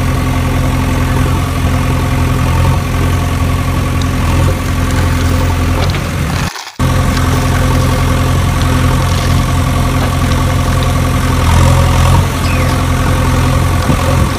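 A steady engine idling sound, low and even, broken by a short drop-out about six and a half seconds in.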